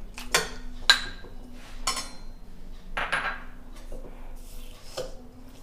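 A steel slotted spoon clinking and scraping against a kadhai and a bowl as mawa is scraped into roasted semolina: about six separate sharp clinks and scrapes at uneven intervals.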